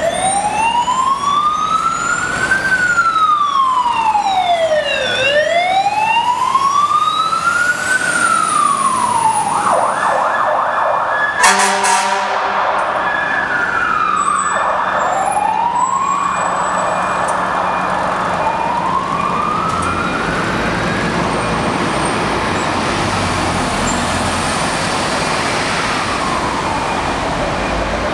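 Fire truck sirens wailing, two of them at once, their slow rising and falling sweeps overlapping. Near the middle a siren switches briefly to a fast yelp and a short horn blast sounds, then the slow wail carries on.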